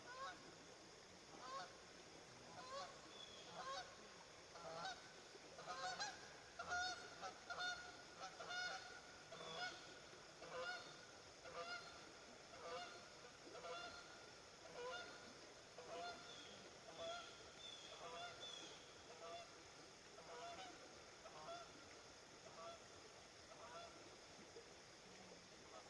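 Geese honking in a long series of repeated calls, loudest about six seconds in and then gradually fading.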